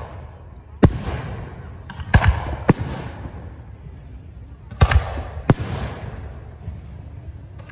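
Aerial firework shells bursting overhead: about six sharp bangs, the first about a second in, a close pair near two seconds, another shortly after, and two more around five seconds. Each bang trails off in a rolling echo.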